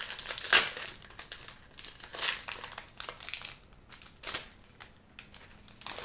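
A foil Magic: The Gathering booster pack wrapper being torn open and crumpled by hand. It comes as several separate bursts of crinkling, the loudest about half a second in.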